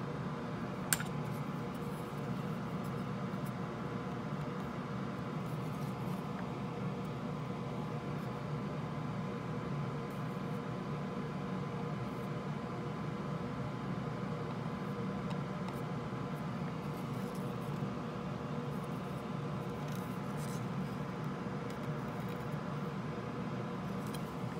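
Steady mechanical hum and hiss with a faint high steady tone, like a small fan or motor running, broken by one sharp click about a second in.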